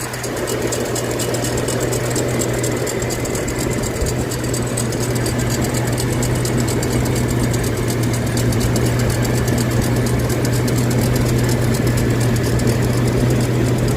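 A machine running steadily with a low hum and a fast, even, high-pitched ticking or squeaking: an unidentified mechanical squeak.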